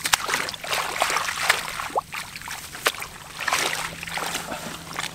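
Splashing and sloshing in shallow water among grass, in irregular bursts with a few sharp slaps, as hands feel through the water for fish.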